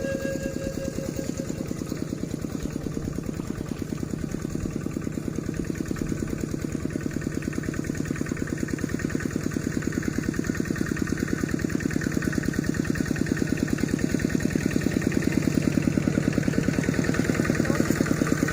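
A small engine running steadily with an even, rapid beat, growing a little louder near the end.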